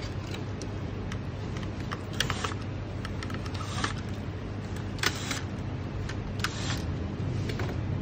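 Plastic protective film crinkling and small plastic parts clicking in a handful of short bursts as the air fryer's touch-panel housing is handled, over a steady low hum.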